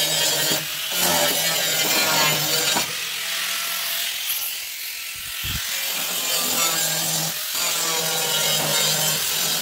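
Electric angle grinder grinding the steel of a car body, a steady motor whine over a rasping hiss. The load eases for a few seconds in the middle and then comes back at full strength.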